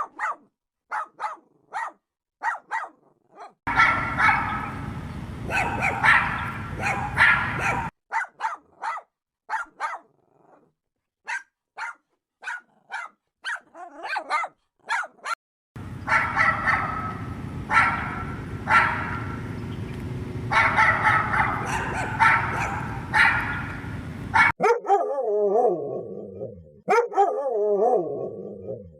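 Dogs barking in many short, sharp barks, some over a steady background hiss, with brief quiet gaps between. Near the end the barking gives way to a wavering, drawn-out cry.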